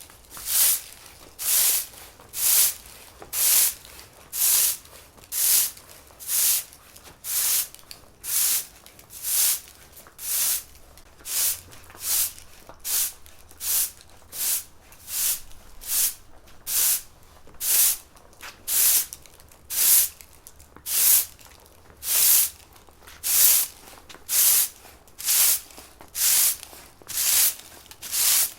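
Broom sweeping a floor in steady, even strokes, each a short bristly swish, about three strokes every two seconds.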